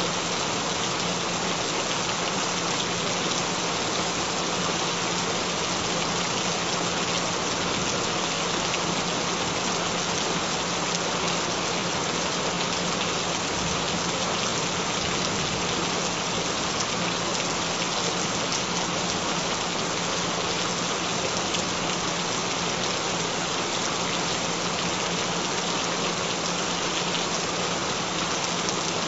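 Steady, even rain falling on a surface, a constant hiss without breaks, with a faint steady low tone underneath.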